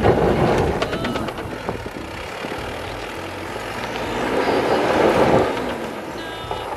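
A Toyota Land Cruiser Prado 90's engine working under load as it climbs a rutted dirt track, its revs rising and falling and swelling louder about two-thirds of the way through.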